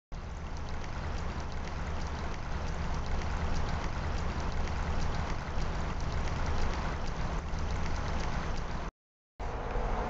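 Running water, a small stream babbling steadily with a low rumble underneath, cut off briefly near the end.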